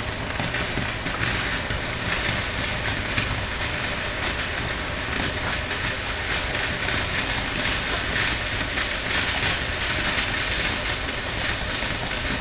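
Consumer firework fountain (the 'Money Team') spraying sparks: a steady fizzing hiss with dense crackling throughout.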